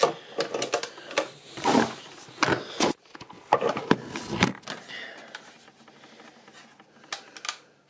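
Handling clatter: short knocks and rubbing of a hard plastic telephone case and the camera on a countertop, dense for the first few seconds, then a few scattered clicks near the end.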